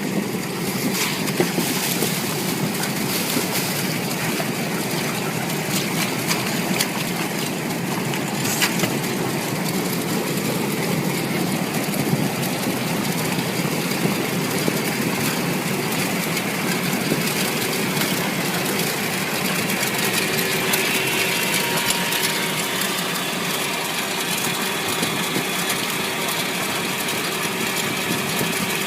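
Air bubble washing machine running steadily, a continuous mechanical noise with a faint steady hum.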